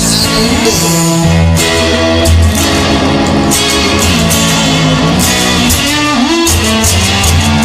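Instrumental rock music: electric guitar playing over bass and drums, with some notes bending in pitch.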